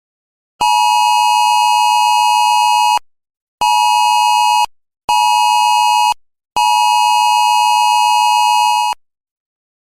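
Phone Wireless Emergency Alert attention tone: a loud, steady two-note alarm tone in four blasts, long, short, short, long, with about half a second between them.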